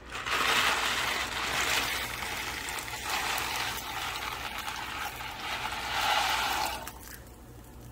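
Dry elbow macaroni pouring from a cardboard box into a pot of rolling boiling water, making a steady hissing rush over the bubbling boil. The rush stops about seven seconds in, when the pouring ends.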